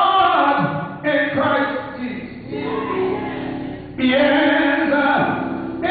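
Gospel singing: a man sings drawn-out phrases with held notes into a microphone, other voices joining in, a new phrase starting about a second in and again about four seconds in.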